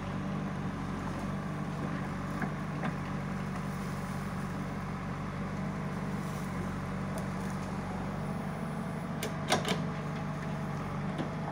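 JCB 3DX backhoe loader's diesel engine running at a steady speed while the backhoe arm digs and dumps soil. A few sharp knocks cut through it, the loudest a quick cluster about nine and a half seconds in.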